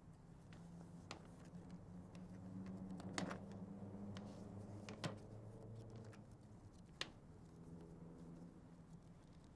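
Banknotes being pulled from a small purse and counted by hand: faint paper rustling with a few sharp clicks about one, three, five and seven seconds in.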